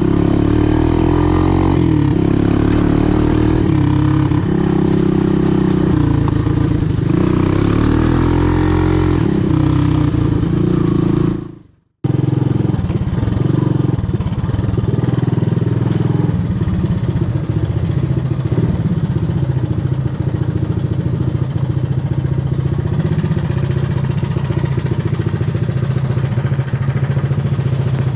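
Honda ATC185S three-wheeler's single-cylinder four-stroke engine running while being ridden, its note rising and falling as it is revved. About twelve seconds in the sound fades out and cuts to a steadier, lower running note.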